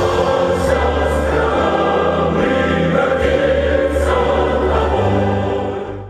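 Choir singing with sustained orchestral chords, fading out near the end.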